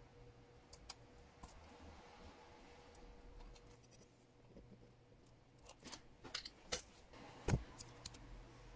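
Small scissors snipping tape laid along a metal watch bracelet: a few faint clicks early, then a cluster of sharp snips and clicks in the second half, the loudest near the end.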